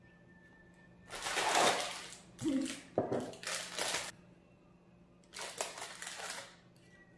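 Rustling noise in four bursts of about a second each, with a short sharp click at the start of the third.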